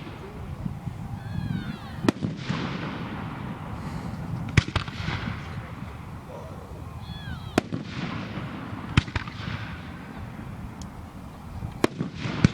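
Fireworks display: aerial shells bursting in sharp bangs, about six of them a few seconds apart.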